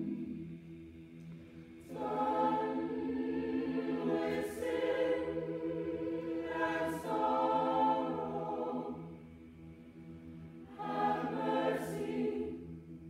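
Mixed choir of young voices singing a slow hymn together, in long sung phrases; the voices fall away briefly near the start and again about nine seconds in before the next phrase.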